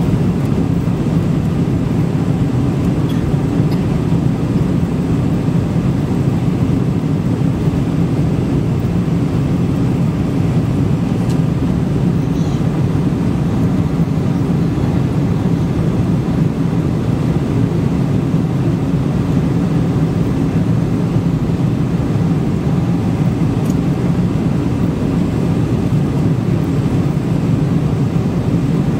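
Steady cabin noise of a Boeing 747-400 climbing out after takeoff, heard inside the cabin over the wing: the low, even hum of its four jet engines mixed with the rush of air past the fuselage.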